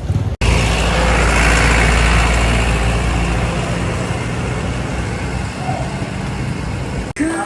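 Street traffic: a motor vehicle's engine running close by amid road noise, starting abruptly about half a second in and easing off slightly over the following seconds.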